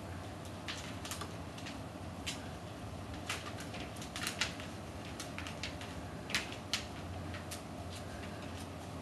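Irregular light clicks and taps of a parrot's claws and beak on a plastic laundry basket as the bird walks it along like a wheel, rolling it on carpet, over a steady low hum.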